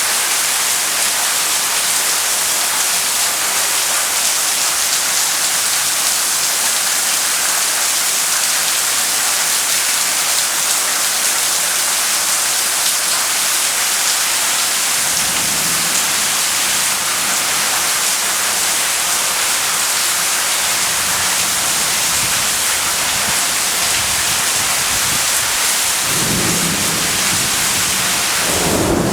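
Heavy rain pouring steadily in a thunderstorm, with thunder rumbling low about halfway through and again, louder, near the end.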